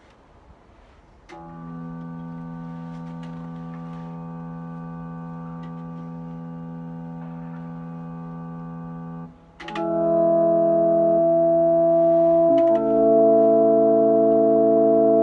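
Electric guitar through a small combo amplifier playing long chords held without fading. A soft chord comes in about a second in, then a louder chord takes over a little past the middle and changes again a few seconds later.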